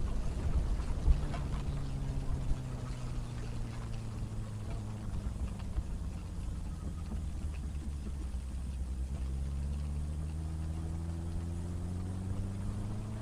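Benelli BN600i motorcycle's inline-four engine easing off, its pitch falling over the first few seconds, then pulling again with a rising pitch near the end. Wind rushing over the microphone is heard throughout.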